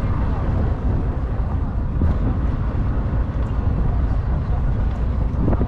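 Steady low rumble of a passenger ferry under way.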